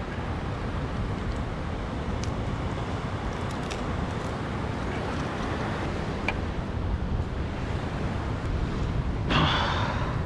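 Steady wind on the microphone over surf washing against the rocks below, with a few faint clicks; a brief louder rush comes about nine seconds in.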